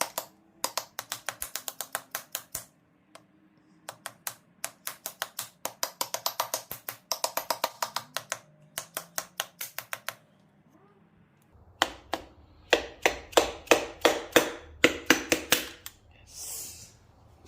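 Rapid, evenly spaced light taps, about seven a second, in several runs with short pauses between them, as a piston is tapped down through a ring compressor into the Audi A4 2.0T engine block. The last run is louder, and a short hiss follows it near the end.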